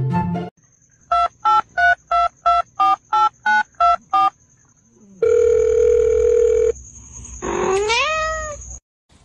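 Telephone keypad tones: ten short beeps at about three a second, then one longer steady beep, then a cat's meow that rises in pitch near the end. A faint high steady tone runs beneath, and a moment of music cuts off at the very start.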